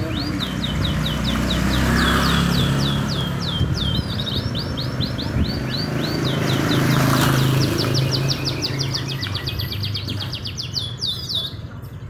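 Caged domestic canaries singing: long rapid trills of quickly repeated chirping notes that change speed from phrase to phrase, stopping near the end. A low hum runs underneath for most of it.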